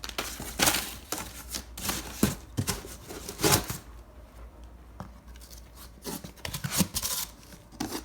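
Firework cakes being handled and shifted: several short bouts of rustling, scraping and crinkling of their cardboard and wrapping, with quieter gaps between.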